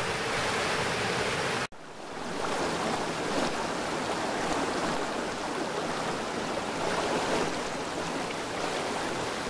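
Rain-swollen woodland stream rushing steadily over stones and a small cascade, running high after heavy rain. The sound cuts out for an instant about two seconds in and swells back.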